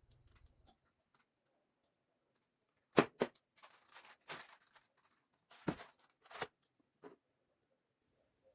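Kitchen handling sounds while a chicken dish is readied for the oven: two sharp knocks about three seconds in, a crinkly rustling, then a few more knocks.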